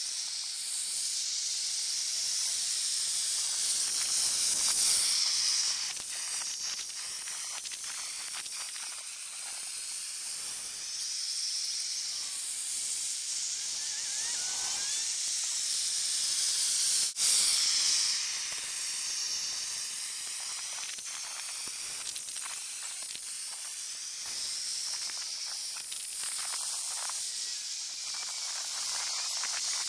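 Steady high hiss of a propane-fired ice resurfacer's burner melting the rink surface, the hiss slowly sweeping and swirling in tone. A single sharp click comes a little past halfway.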